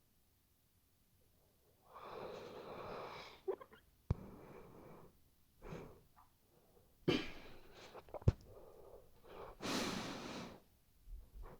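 Sleeping Weimaraner snoring: after a brief quiet, a run of irregular, wheezy breaths, the loudest near the end, with a couple of short sharp clicks between them.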